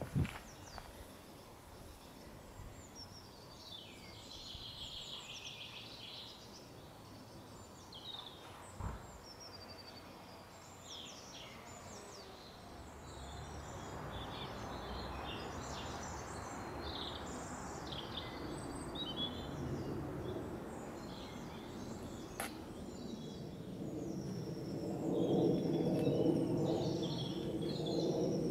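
Garden birds chirping and singing, many short calls throughout. A low rumble builds through the second half and is loudest near the end.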